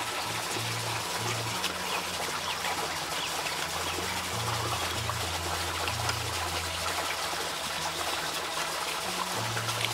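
A steady trickling, rushing noise like running water, under soft low notes of background music.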